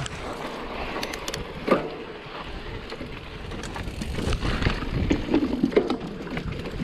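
Mondraker Level R electric mountain bike riding down a dirt trail: tyres rumbling over the ground, with the chain and frame rattling and sharp knocks over bumps, the loudest a little under two seconds in. The noise grows louder and rougher in the second half, with wind buffeting the microphone.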